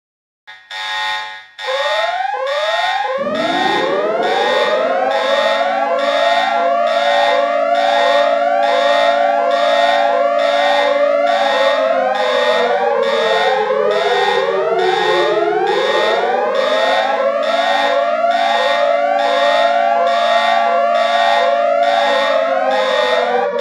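Electronic emergency alert alarm: fast repeating pulses of rising sweeps, joined about three seconds in by a wailing siren that rises, holds, sags in the middle, climbs again and falls away near the end. It starts abruptly after a moment of silence.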